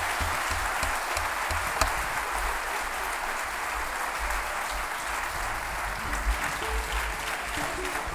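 Concert hall audience applauding steadily, a dense sustained clapping at the end of a song.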